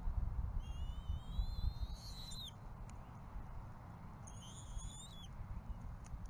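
Two high, thin whistled calls from a bald eagle, each rising in pitch. The first lasts about two seconds, starting about half a second in; the second lasts about a second, just past the middle. Under them runs a steady low rumble.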